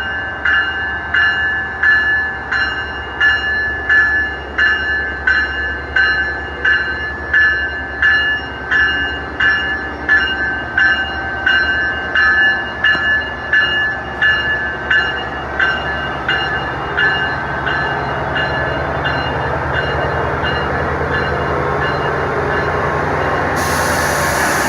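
A bell ringing steadily at just under two strokes a second over the low rumble of a train; after about sixteen seconds the strokes fade while a rising rush of train noise grows and takes over near the end.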